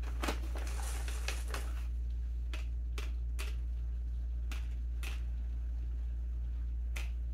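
Peanut butter M&Ms being handled and counted out by hand: a brief rustle about a second in, then scattered light clicks of candy shells, over a steady low hum.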